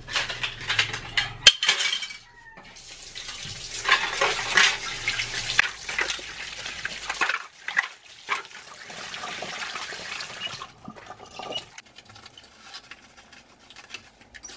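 Tap water running into a sink while small plastic coin-slot housing parts are rinsed and rubbed by hand, with light plastic knocks and clatter. The water runs steadily through the middle and stops about eleven seconds in, leaving the quieter sound of the wet parts being rubbed and handled.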